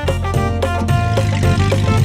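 Instrumental music of a children's rhyme with a steady beat and a strong bass line.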